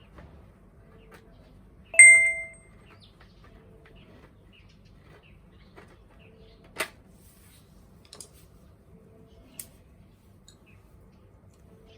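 A metal object is struck once about two seconds in and gives a bright ringing ping that dies away within a second. A few small clicks and knocks follow.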